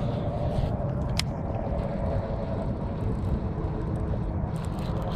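Steady low wind rumble on the camera's microphone while fishing from a kayak, with a single sharp click about a second in.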